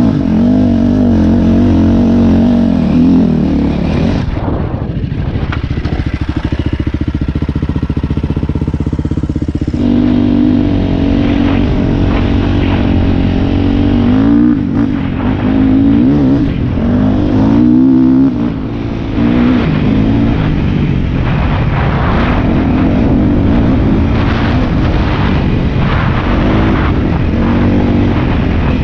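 Dirt bike engine running under load on the trail, the revs rising and falling with the throttle. From about four to ten seconds in, it drops to a low, rapid chugging before picking up again.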